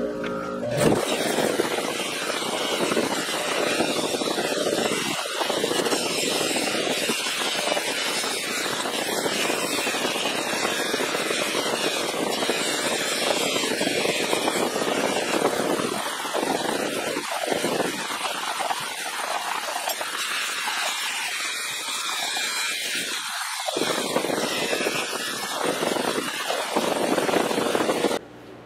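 Bench grinder running with steel slip joint pliers pressed against its spinning fiber wheel: a steady, loud grinding hiss of metal being scoured, which dips briefly a few times as the pliers are shifted on the wheel. It cuts off abruptly near the end.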